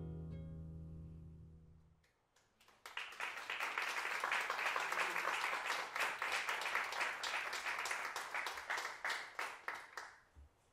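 The last note of a choro piece for flute and guitars rings and fades away over about two seconds. A moment later an audience and musicians applaud for about seven seconds, dying out near the end.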